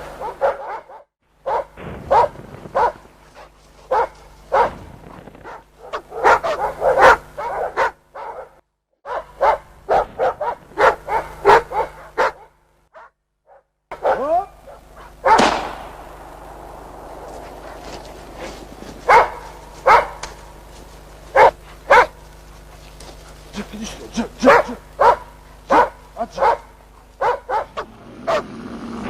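Hunting dogs barking at a bear, bark after bark in quick runs, with a few brief breaks.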